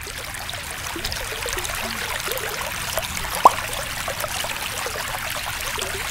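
Shallow stream water running and rippling over a pebble bed close to the microphone, with one sharp plop about three and a half seconds in.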